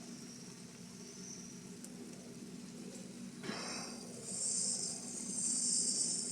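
Sausages and vegetables sizzling in a pot on the stove, a steady hiss that grows louder over the last two seconds, with a brief louder burst about three and a half seconds in.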